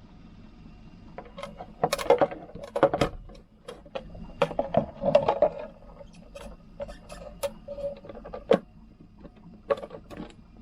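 Irregular clicks, knocks and light rattles as a small hardware part with a nut is handled and fitted by hand.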